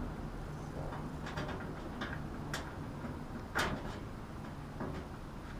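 Scattered clicks and light metal knocks from a sheet-metal access cover being fitted back onto a rooftop air conditioner, the sharpest knock about three and a half seconds in, over a steady low hum.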